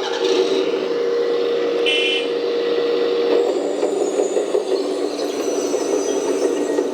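An RC excavator's sound module imitating a large diesel excavator engine through a small speaker, running steadily. Its pitch steps lower about three and a half seconds in, with a short beep about two seconds in.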